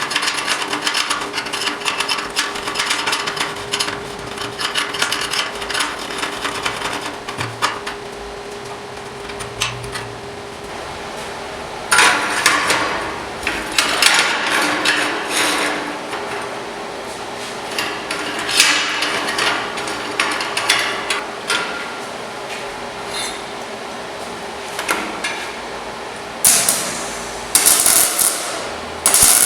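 Hammer and hand-tool work on steel parts: repeated taps, knocks and scraping, with a few louder strikes, over a steady hum.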